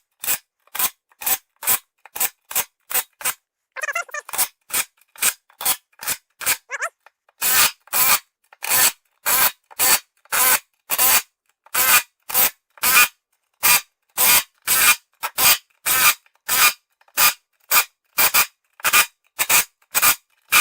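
Quick, rhythmic rasping strokes from a hand tool worked back and forth on the wheel, about two a second, with a short break about three seconds in.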